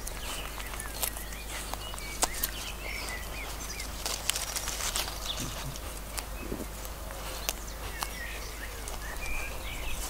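Lamb grazing, tearing off grass in irregular crisp rips and chewing, with small birds chirping in the background.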